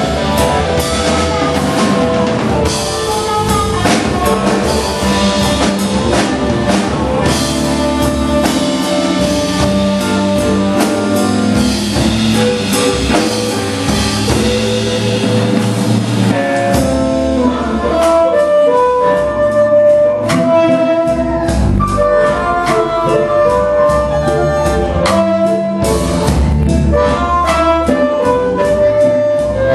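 Live blues band playing: harmonica held notes with bends, over electric guitar and a drum kit. The harmonica's long held notes stand out more clearly in the second half.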